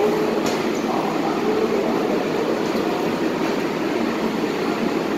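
R188 subway train standing at an underground platform, its onboard equipment giving a steady, even hum. A single faint click comes about half a second in.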